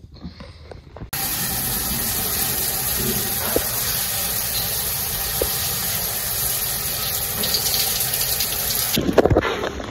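Shower running: a steady hiss of water spraying from a handheld shower head onto tiles and a hand. It starts suddenly about a second in and cuts off near the end.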